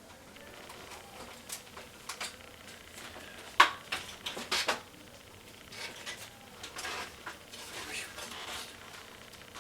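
A 200mm case fan and its screws being handled and fitted against a computer case: irregular clicks, taps and short scrapes, the loudest a sharp click about three and a half seconds in.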